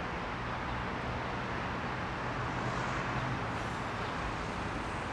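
Street traffic noise: a steady hum of road traffic with no single event standing out.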